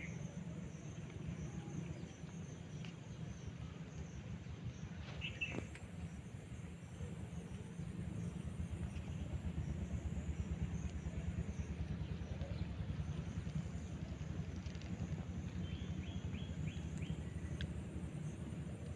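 A steady low rumble of background noise with a few short, high parrot chirps: one near the start, one about five seconds in, and a quick run of chirps near the end.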